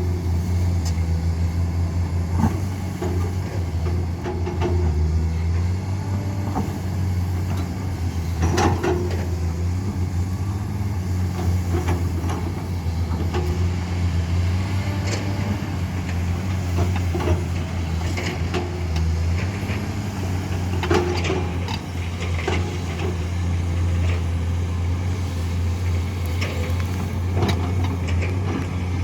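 Diesel engines of heavy earthmoving machinery running steadily at work, a deep drone that rises and falls a little in pitch, with scattered knocks and clanks every few seconds.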